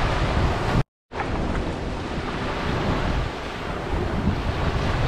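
Small waves washing steadily onto a sandy beach, with wind rumbling on the microphone. The sound cuts out completely for a split second about a second in, then resumes.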